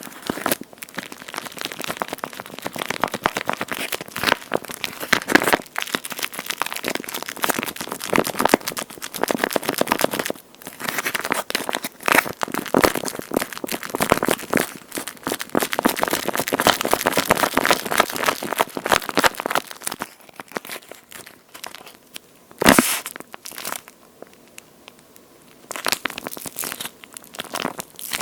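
Hands squeezing and kneading a water-filled squishy toy shaped like a slice of toast, giving a dense, fine crackle of many tiny clicks in long spells. The handling pauses after about twenty seconds, broken by one sharp knock, then resumes briefly near the end.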